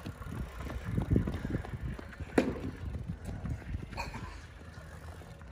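Running footsteps of a child on a concrete sidewalk, irregular low thuds over a low rumble, with a single sharp knock about two and a half seconds in.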